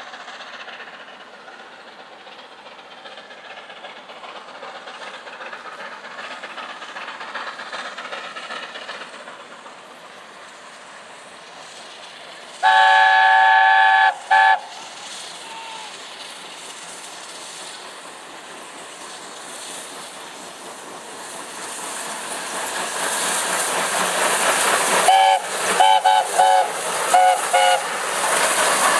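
LNER A4 steam locomotive 4464 'Bittern' sounding its chime whistle: one long blast about halfway, then a short toot, and a run of short toots near the end. Beneath it the train's running noise grows steadily louder as it comes closer.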